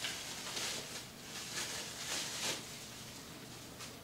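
Small clear plastic parts bag softly rustling and crinkling as it is handled and opened, with a few slightly louder crinkles.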